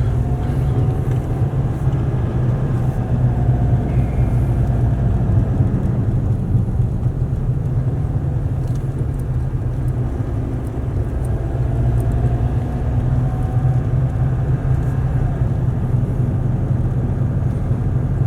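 A car being driven, its engine and road noise making a steady low rumble throughout, with faint rising and falling whines above it.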